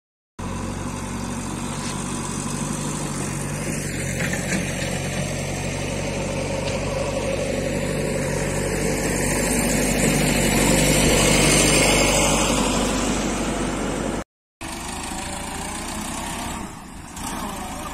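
Tractor diesel engine running steadily under a broad rushing noise that swells a little past the middle. After a brief dropout near the end, the Sonalika 750 tractor's engine idles more quietly.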